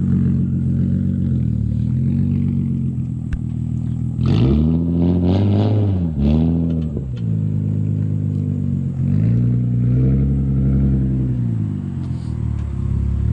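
Infiniti G35 coupe's 3.5-litre V6 through an aftermarket Tomei exhaust, driven slowly with light throttle: a steady low exhaust note that rises and falls with several short blips of revs in the middle and a longer swell later on.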